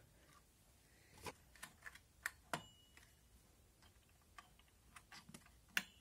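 Faint, scattered small plastic clicks and taps from handling an Intel stock CPU cooler and its push-pin clips over the motherboard, with a sharper click near the end.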